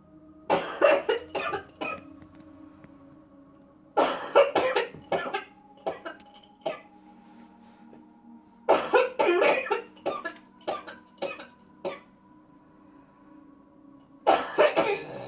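A person coughing in four bouts of several hard coughs each, one bout about every four to five seconds.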